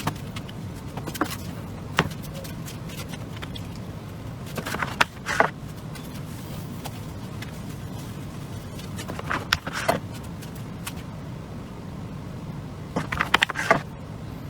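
A knife cutting potatoes on a cutting board: short bunches of sharp taps and scrapes a few seconds apart, over a steady low hum.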